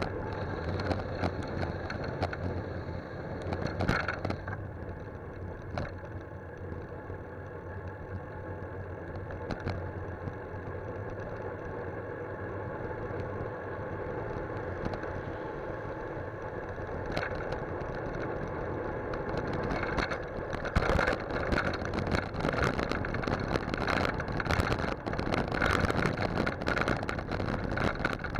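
Riding noise picked up by a camera mounted on a bicycle's handlebars: a steady rush of wind and road noise, with frequent short rattles and knocks from the bike going over the road surface, which grow busier and louder in the last third.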